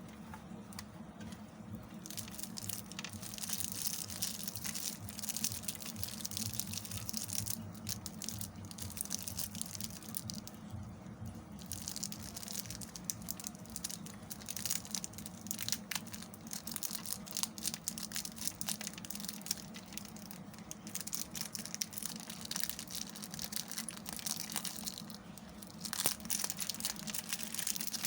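A blade carving a bar of soap: dense, crisp crackling and scraping as the soap is cut, in stretches broken by a few brief pauses.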